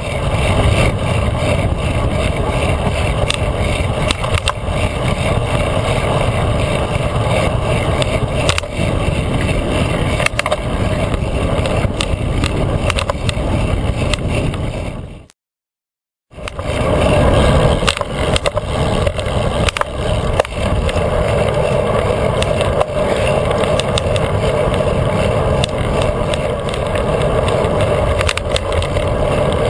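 Wind rushing over a handlebar-mounted GoPro and tyre rumble from a bicycle rolling over pavement, with frequent small clicks and rattles from the bike and mount. The sound cuts out for about a second just past the middle, then resumes.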